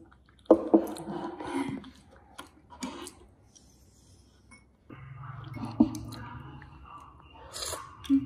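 Spoon and straw stirring milk in a drinking glass, with a scraping stretch early and several sharp clicks against the glass. A low steady hum comes in about halfway through, and a short hissy slurp is heard near the end.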